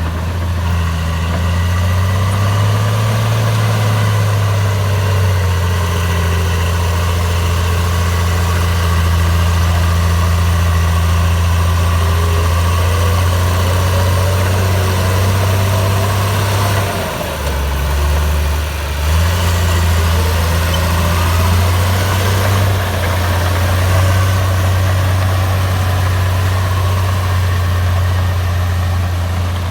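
Komatsu bulldozer's diesel engine running steadily. Its note drops for a moment about two-thirds of the way through and then picks up again, with fainter whines rising and falling above it.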